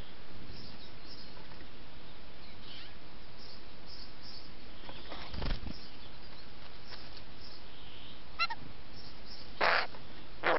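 Eurasian jay at close range: a soft low thump about halfway through, then two short harsh rasping calls near the end, over the trail camera's steady hiss.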